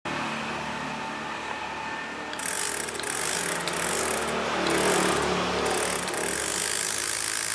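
Small 12 V DC motor spinning a clear plastic propeller, running with a steady whirr and rush of air that grows louder and brighter about two and a half seconds in.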